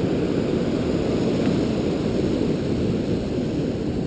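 Strong wind buffeting the camera microphone: a steady, loud low rumble.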